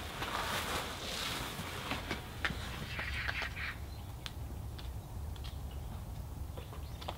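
Cloth blanket rustling as it is pulled off a greenhouse bed of greens, then scattered light clicks and a few short bird calls about three seconds in.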